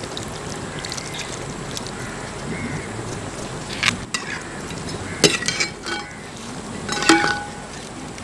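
Cashew paste poured into a large steel pot of simmering curry, followed by a few sharp metal clinks against the pot, a ladle among them. The loudest clink, near the end, rings briefly.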